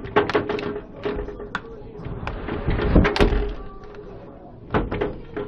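Strong gusting wind with a heavy low rumble about three seconds in, mixed with repeated sharp knocks and bangs like something loose or a door being hit.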